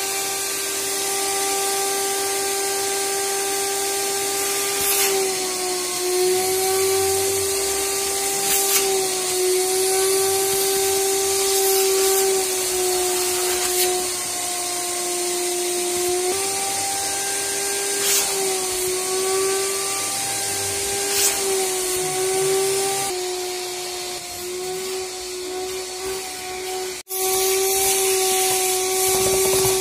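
Wet vacuum running continuously while its upholstery nozzle sucks shampoo foam out of a fabric sofa cushion. It makes a steady whine whose pitch dips and recovers slightly now and then, and it cuts out briefly near the end.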